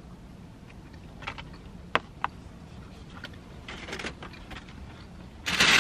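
Clear plastic takeout containers being handled: a few sharp clicks, soft crinkling, then a louder burst of plastic rustling and crackling near the end.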